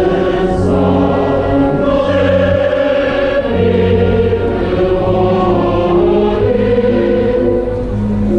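Large mixed choir singing with orchestral accompaniment of strings and double bass, in slow, held chords.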